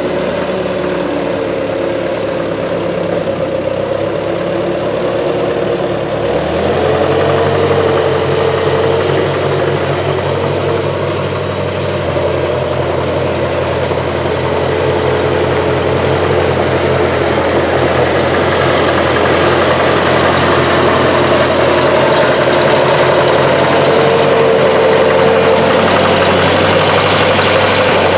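Massey Ferguson 202 tractor's rebuilt Continental Z134 engine running steadily, its pitch stepping up slightly about six seconds in.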